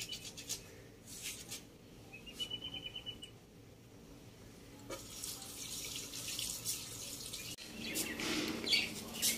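Water running from a wall tap into a small steel sink, a steady hiss that starts about five seconds in.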